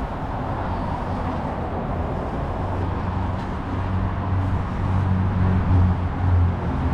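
Steady road traffic noise, a low engine rumble under a wash of tyre noise, swelling about five seconds in as a heavier vehicle passes.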